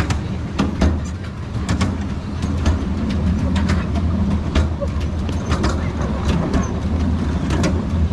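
Miniature railway train running along its track, heard from on board: a steady low rumble with frequent sharp clicks and rattles from the wheels and carriages, a few each second.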